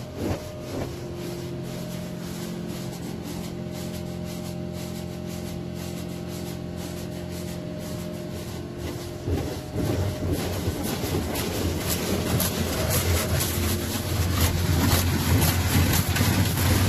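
Touchless in-bay car wash (Magic Wand neXus) heard from inside the car. For the first nine seconds or so the wash machinery gives a steady hum. From about ten seconds in, high-pressure water spray drums on the car's body and glass, getting louder toward the end.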